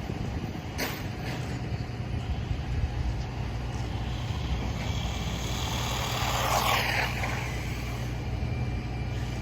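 A vehicle passes by around six to seven seconds in, with a falling pitch as it goes, over a steady low rumble. There is a short click about a second in.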